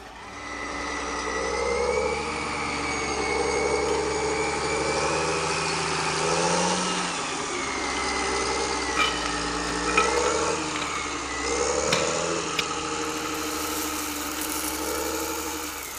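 Tractor engine sound running steadily, swelling and easing every second or two as if revving lightly, with a few short clicks around the middle.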